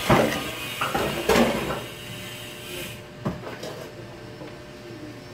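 Clattering knocks and scrapes of a metal spoon against a tin can and a plastic tub, loudest in the first two seconds, then one sharp knock about three seconds in.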